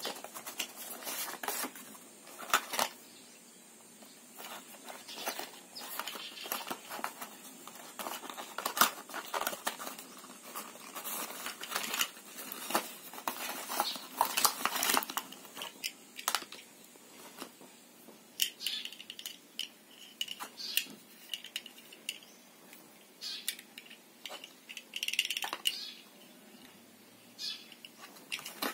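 Hands opening and handling a cardboard product box: paperboard rustling and crinkling as flaps and the card insert are pulled open, with scattered light taps and clicks as the dongle and its cable are handled.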